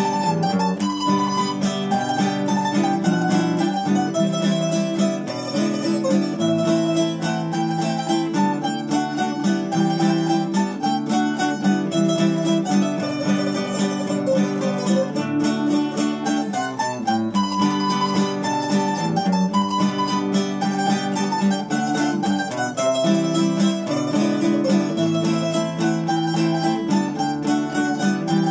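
A nylon-string acoustic guitar and a small double-course string instrument play an instrumental piece in G major together, strummed and plucked in a steady rhythm.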